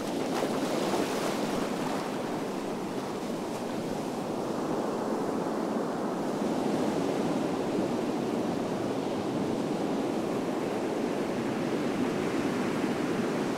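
Ocean surf breaking and washing up over the sand in a steady rush, with wind on the microphone.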